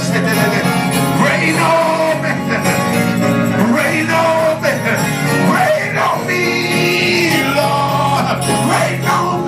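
Live gospel praise music from a church band, playing on between the sung lines of the song.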